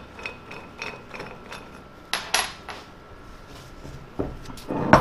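Handling clatter of a cast-iron air compressor head on a steel workbench: light clicks and knocks, a louder ringing metal clink about two seconds in, and a heavier knock near the end as the head is turned over on the bench.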